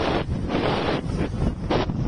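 Gusty wind buffeting the microphone in a constant low rumble, over rough sea surf breaking against a seawall of concrete tetrapods, with rushes of hiss that swell and fade.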